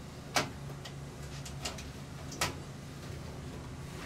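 Metal RV gas range being jiggled loose in its cabinet opening: two sharp knocks, about half a second and two and a half seconds in, with a few light ticks between.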